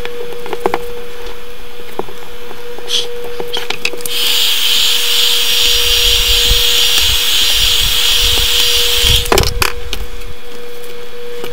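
A heat gun blows for about five seconds: a steady airy hiss with a low rumble that starts about four seconds in and cuts off near the end. It is warming the adhesive under the tablet's digitizer glass. Before it come a few light clicks and cracks as the glass is worked loose.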